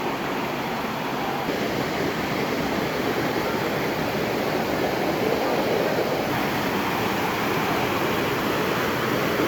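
A waterfall's rushing water: a steady, even noise.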